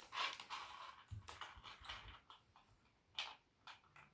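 Handling noise from plastic kit parts and packaging: rustling with scattered sharp clicks, the loudest about three seconds in.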